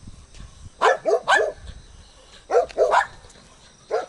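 A dog barking in short bursts: a quick run of three barks about a second in, another three around the middle, and a single bark near the end.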